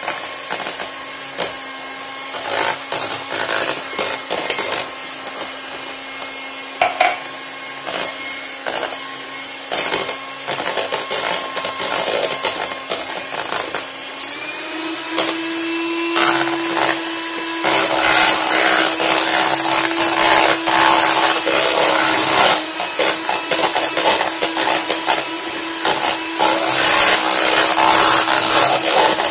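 Electric hand mixer running, its beaters whisking plum marmalade into whipped cream in a plastic bowl, with frequent clicks of the beaters against the bowl. About halfway through the motor's hum steps up in pitch and the whisking grows louder.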